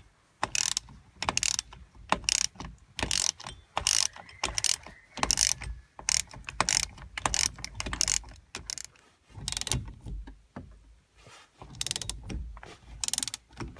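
Ratchet wrench clicking in quick back-and-forth strokes, about two a second, turning the forcing screw of a steering wheel puller to draw the steering wheel off its shaft. The strokes pause for about two seconds around nine seconds in, then resume.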